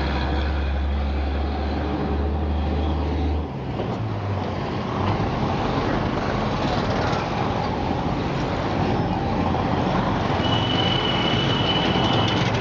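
A motor vehicle's low engine hum that stops about a third of the way through, followed by a steadily rising rush of road noise. Near the end a high-pitched steady beep sounds for about two seconds.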